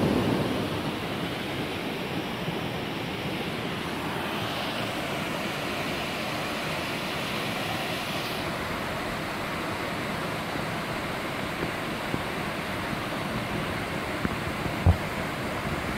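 Salto de Jimenoa waterfall rushing steadily into its pool, running with recent rainwater. A low rumble of wind on the microphone fades in the first second, and a single low thump comes near the end.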